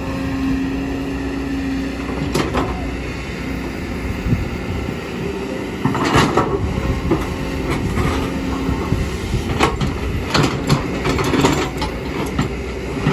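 Kobelco excavator working, its diesel engine running steadily under load, with a held whine coming and going and scattered sharp metal clanks and knocks.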